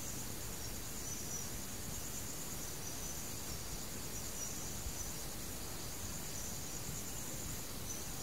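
Insects chirring steadily in a high, unbroken band over a constant background hiss and low rumble.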